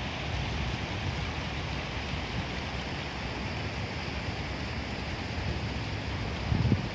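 Fountain jets splashing steadily into a pool, with wind rumbling on the microphone and a louder low bump near the end.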